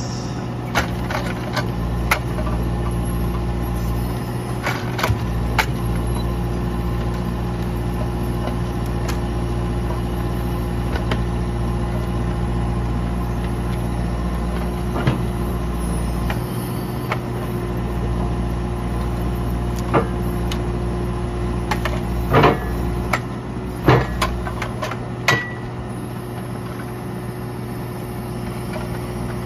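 Morooka MST600 crawler forwarder's diesel engine running steadily while its hydraulic grapple crane loads logs. Scattered sharp wooden knocks and thuds sound as logs bump and settle onto the bed, the loudest about two-thirds of the way through.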